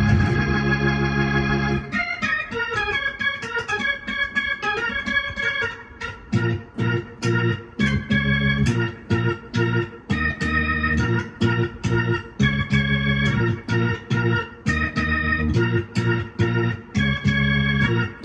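Electronic keyboard played with an organ sound in a gospel praise style: a held chord, then fast runs of notes about two seconds in, then short, choppy chords with brief gaps between them from about six seconds on.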